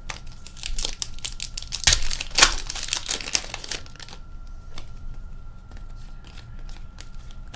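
Foil wrapper of a hockey card pack crinkling and tearing, densest from about one to four seconds in, then lighter rustles and clicks of cards being handled.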